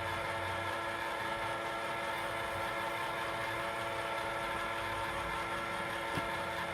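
A small electric motor running steadily, a constant whir with a fixed whine that does not change in pitch.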